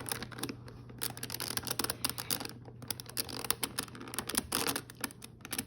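Irregular plastic clicks and rattles of Rubik's Cube pieces being handled and pressed as edge pieces are worked into the partly assembled cube.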